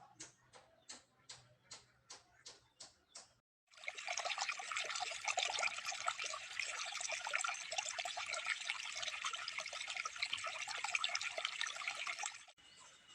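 Water running and splashing steadily for about eight seconds, starting after a short gap and stopping abruptly near the end. Before it comes a quieter run of evenly spaced clicks, about three a second.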